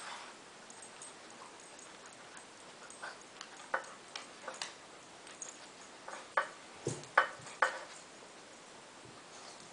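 A dog nudging tennis balls around in a metal muffin tin: scattered light clicks and knocks of the balls and the tin, with a run of several louder knocks past the middle.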